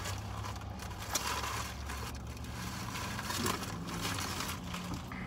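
Low steady hum inside a car's cabin, with light rustling, crackling and small clicks from people eating fast food and handling its packaging.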